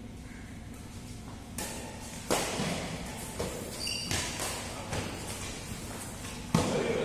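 Badminton rackets striking the shuttlecock in a fast doubles rally: about six sharp hits roughly a second apart, the loudest a little past two seconds in and near the end, echoing in a large hall. A brief high squeak sounds near the middle.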